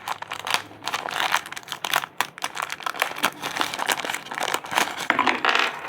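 Plastic packaging crinkling and rustling in irregular crackles as accessories are taken out of a box.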